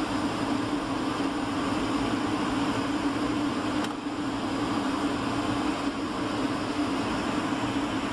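Steady cabin noise inside a Boeing 757-300 airliner descending toward landing: an even rush of engine and airflow noise with a low hum.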